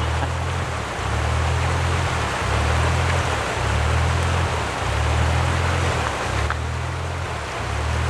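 Rushing river water, with the deep bass of a music track pulsing underneath at about one note a second.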